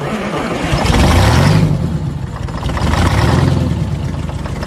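Detroit Diesel 8V71 two-stroke V8 diesel running hard. Its revs climb about a second in, sag, climb again a little past the middle and ease back near the end, the unsteady speed of an engine in a runaway test with water sprayed into its blower.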